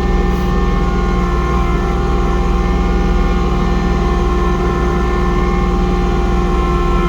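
Kubota compact tractor's diesel engine running steadily under load, driving a PTO snowblower through heavy wet snow, with a steady mechanical whine over the engine.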